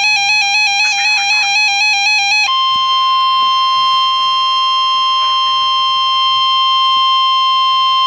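Weather radio sounding a severe thunderstorm warning alert. A fast-pulsing electronic alarm tone plays first. About two and a half seconds in, it switches to a loud, steady single-pitched tone: the 1050 Hz warning alarm tone that comes before the voice message.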